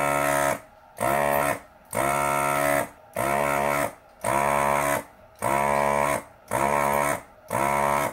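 Electronic beeper sounding a steady-pitched, buzzy tone in long pulses, about one a second, eight in all.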